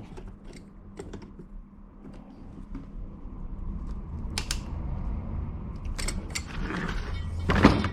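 Scattered clicks and knocks of metal parts being handled as the wiper linkage arms are worked onto their ball joints, with a low background hum that grows louder partway through.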